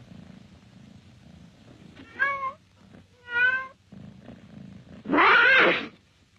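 Domestic cat meowing three times, the last call the loudest and longest, with a low purr in the gaps before the first call and after the second.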